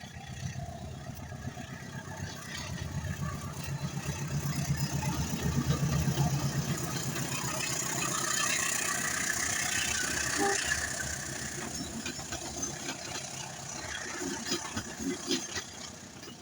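CC201-class diesel-electric locomotive's engine running as it passes, growing loudest a few seconds in and then fading, followed by the train's wheels hissing on the rails. Rhythmic wheel clacks over the rail joints come near the end.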